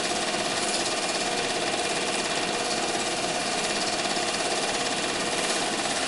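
Super 8 film projector running: a steady, fast mechanical clatter of the film transport.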